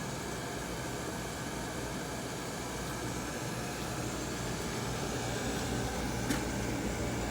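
Steady mechanical hum and hiss. A low hum grows stronger about four seconds in, and there is a single sharp click about six seconds in.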